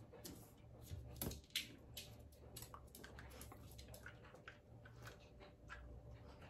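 Small dog chewing a treat: faint, irregular crunches and wet clicks, with two louder crunches about a second and a half in.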